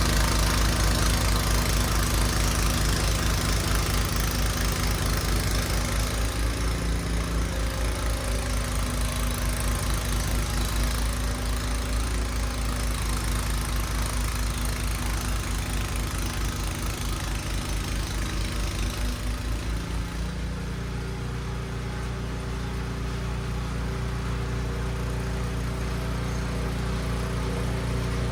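Husqvarna gas snow blower engine running steadily. Its note changes about two-thirds of the way through.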